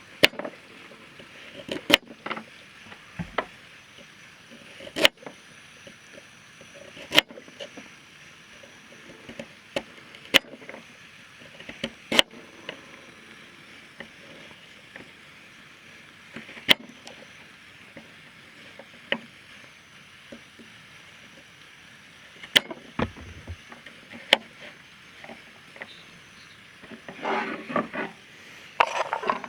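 Wood campfire crackling, with sharp single pops every second or two over a faint steady hiss. Near the end there is a short run of rustling and knocking handling sounds.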